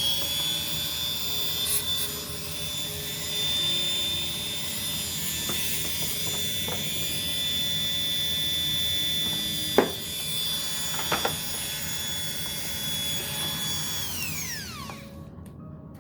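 All-Power rotary tool running at steady high speed with a high-pitched whine, driving its flexible shaft, then switched off about two seconds from the end and winding down to a stop. A few sharp knocks or clicks sound about ten and eleven seconds in.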